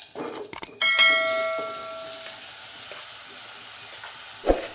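Cut long beans tipped into hot oil in a clay pot, setting off a steady sizzle. About a second in comes a single ringing clang that fades over a second or so, as something strikes the pot, and there is a knock near the end.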